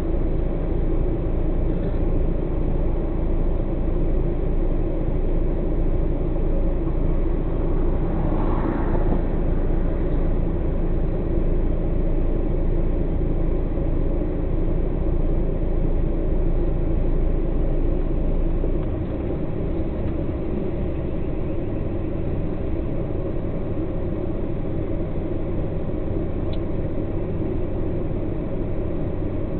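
Truck diesel engine idling steadily, heard from inside the cab as a low rumble. There is a short rush of noise about nine seconds in. The rumble eases a little a bit past halfway.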